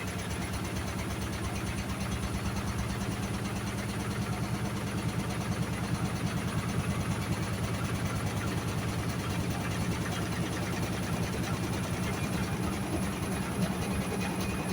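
Hoover Sudslock washing machine running: a steady motor hum with a fast, even pulsing.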